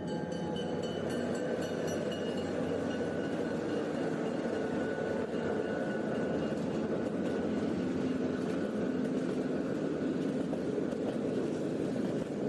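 Train running steadily, with a continuous rumble and faint high squealing tones that fade out over the first few seconds.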